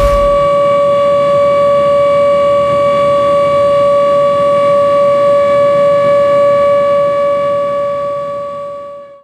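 A ship's horn sounds one long, steady blast at a single pitch, then fades out near the end.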